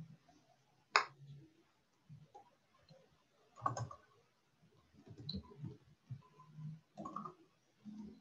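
Computer keyboard being typed on: scattered key clicks and soft taps. The sharpest click comes about a second in, with others a little before four seconds and at seven seconds.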